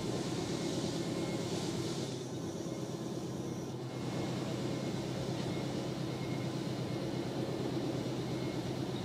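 Nankai 2000-series electric train moving slowly along a station platform: a steady running rumble and hum, slightly weaker for a couple of seconds and back to full about four seconds in.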